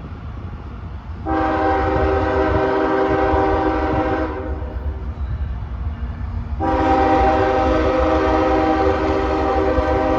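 Locomotive air horn sounding two long blasts, each a chord of several steady tones lasting about three seconds, over a low rumble from the approaching train.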